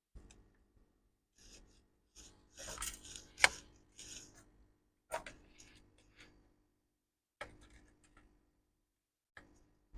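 Small hand tools and metal parts being handled while a MacBook Air is taken apart: scattered light clicks and scraping, with one sharp click about three and a half seconds in.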